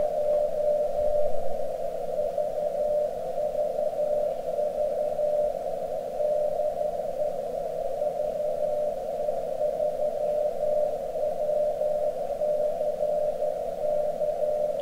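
The VE3WCC 23-centimetre amateur radio beacon, received on an RTL-SDR dongle with SDR# in upper sideband: its carrier comes through as a steady tone of about 600 Hz. The tone sits in a narrow band of receiver hiss.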